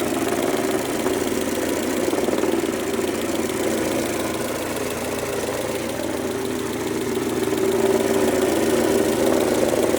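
Mercedes-Benz A140 (W168) 1.4-litre four-cylinder petrol engine running at idle, making the unusual noise that suddenly appeared. The owner fears it may mean the engine is a write-off.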